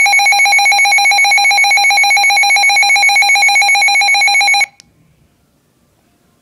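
Loud electronic weather-radio alert tone, a rapid steady warble that cuts off suddenly about four and a half seconds in. It is the alarm that announces a severe thunderstorm warning broadcast.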